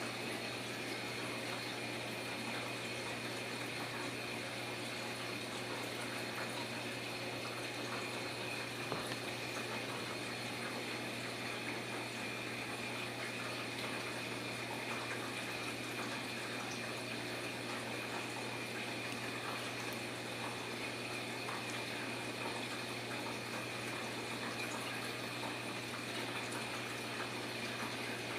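Steady, unchanging hiss with a low hum underneath: constant room or appliance background noise.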